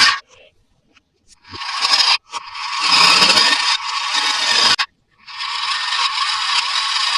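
Toy packaging being scraped or torn open: three long scraping strokes with short breaks between them, each building in loudness.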